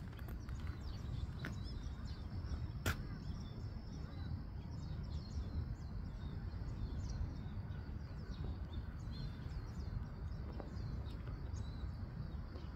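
Outdoor ambience: small birds chirping in many short, quick calls over a steady low rumble, with a sharp click about three seconds in.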